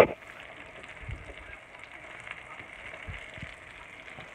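Food frying in a pan: a steady sizzle with many small crackles.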